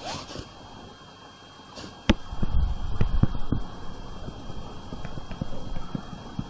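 Handling noise: a sharp click about two seconds in, then irregular low knocks and bumps, over a faint steady high whine.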